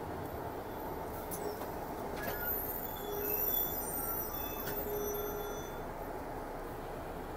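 Steady low road and engine noise of a moving car, with a few faint short high tones around the middle.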